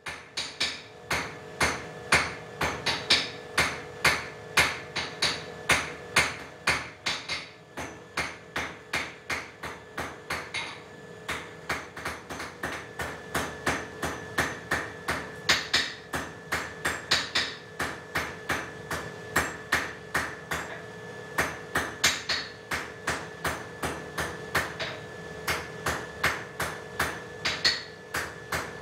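Blacksmith's hand hammer striking a hot 6 mm round steel bar on the anvil in a steady rhythm, about two to three blows a second, drawing the end of the bar out thinner.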